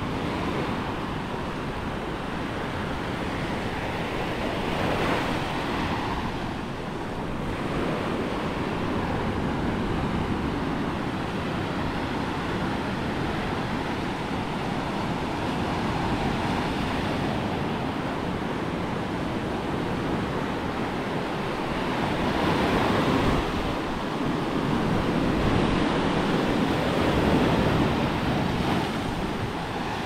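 Small sea waves breaking and washing over sand and boulders at the shoreline: a steady rush of surf that swells louder with each incoming wave.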